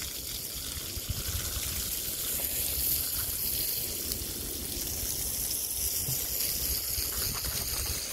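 Garden watering: a steady hiss and trickle of running water.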